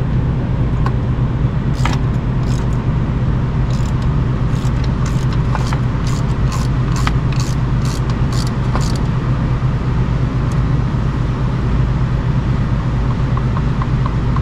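Hand wrench clicking in short strokes, roughly two a second, while tightening the clutch cross-shaft bushing on a VW transaxle; the clicks stop about two-thirds of the way through. A steady low hum runs underneath and is the loudest sound.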